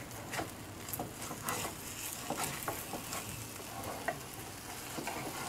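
Omelet frying in a nonstick frying pan: a steady sizzle, with frequent short scrapes and taps of a slotted spatula working under and around the eggs.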